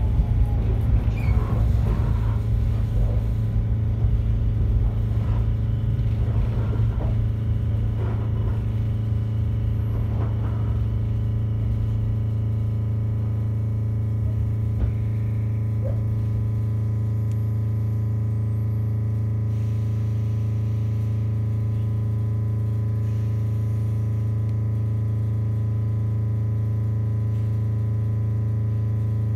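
Inside an MC7001 electric railcar: rumble and clatter from the running gear fade out over the first dozen seconds as the car slows to a stand, leaving a steady electrical hum from its on-board equipment.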